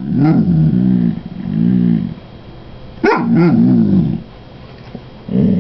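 Dog 'talking': a string of about four drawn-out moaning vocalisations, each rising and falling in pitch, the third starting sharply. It is begging for food.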